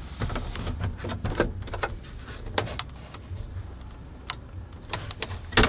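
Plastic overhead storage compartment lid in a truck cab being unlatched and swung open: a scattered series of sharp clicks and knocks over a steady low hum.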